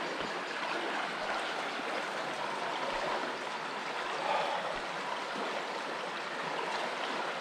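River water flowing over rocks and small falls: a steady, even rush.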